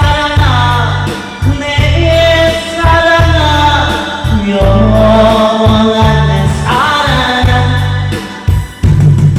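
A singer's voice, holding and sliding between long notes, over an amplified backing track with a heavy pulsing bass.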